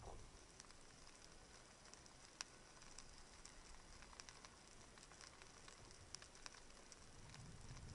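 Near-silent underwater reef ambience heard through a submerged camera: faint scattered crackles and clicks, with one sharper click about two and a half seconds in.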